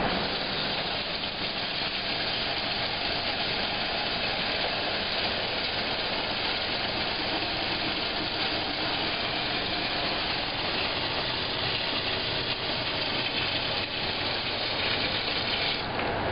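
Kitchen faucet running steadily, its stream pouring into a small stainless-steel cup with a constant rushing hiss.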